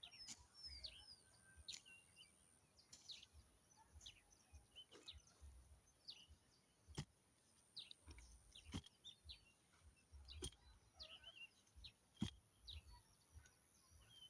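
Faint chirping and twittering of small birds, many short calls, with a sharp knock every second or two, the loudest about twelve seconds in.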